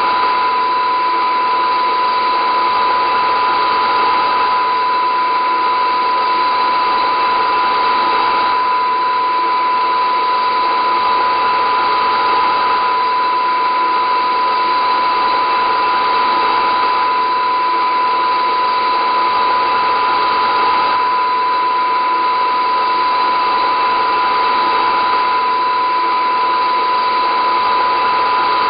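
A steady drone: a constant high tone held over a dense, even hum and hiss.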